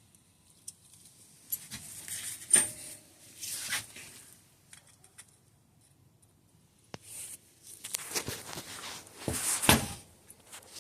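Tools and small metal parts handled on a workbench: intermittent clatter and rustling, with one sharp metallic knock about two and a half seconds in and a louder burst of clatter near the end.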